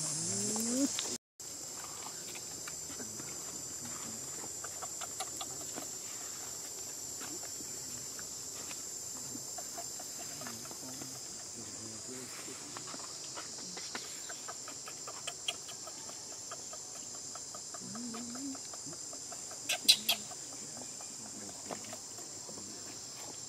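Steady high-pitched drone of an insect chorus, with faint rustling and a few short low calls, and a couple of sharp clicks about twenty seconds in.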